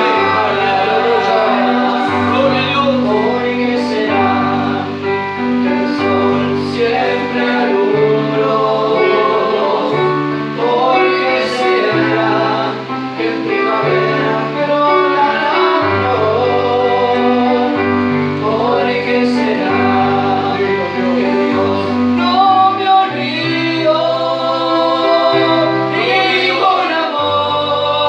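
Two men singing a church hymn into microphones over an electronic keyboard, which holds long bass notes that change every second or two.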